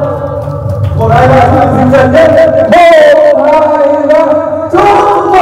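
Singing over musical accompaniment, the voice holding long notes that bend in pitch.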